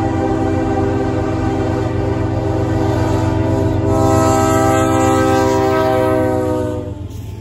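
Norfolk Southern diesel freight locomotives passing with the horn blowing: a long, loud multi-note chord over the steady low run of the diesel engines. The horn's pitch drops slightly as the lead unit goes by, and the horn cuts off near the end.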